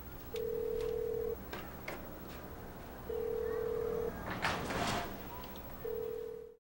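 Telephone ringback tone: a steady beep about a second long, three times, the signal that the called phone is ringing and has not been answered. It cuts off suddenly in the middle of the third beep.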